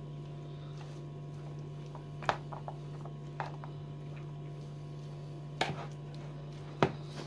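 A metal spoon stirring salad in a plastic bowl, giving a few sharp clicks against the bowl, over a steady low electrical hum.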